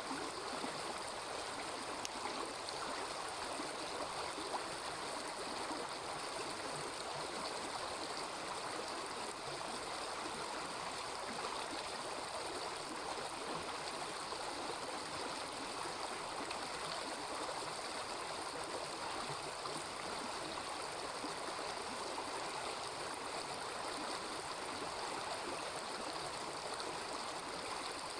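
A small river babbling steadily, an even rush of flowing water, with a few faint clicks.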